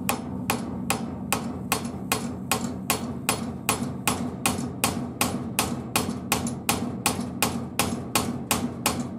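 Hammer blows on a wooden block set against the seized piston of a Piaggio Ciao M1M moped engine, struck in a steady rhythm of about two to three a second, trying to drive the stuck piston out of the cylinder. The piston does not move.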